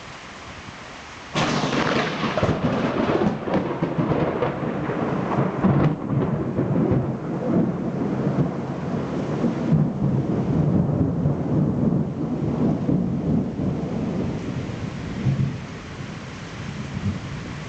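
A thunderclap from nearby lightning starts suddenly about a second and a half in. It crackles sharply for a few seconds, then rolls on as a long low rumble that slowly fades.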